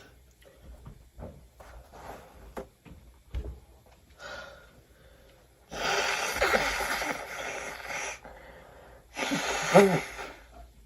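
A person's wheezy gasping and sneezing, set off by a nasal swab: faint breaths and small knocks at first, then a long wheezy burst of over two seconds about six seconds in, and a shorter, louder voiced burst about a second later.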